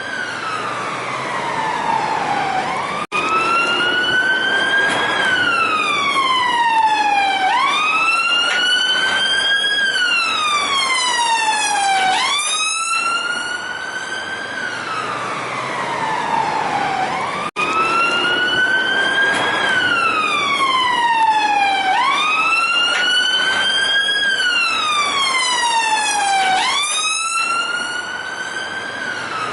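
Police car siren on its wail tone, rising slowly in pitch for about two seconds and falling for about two more, over and over. The sound drops out for an instant twice.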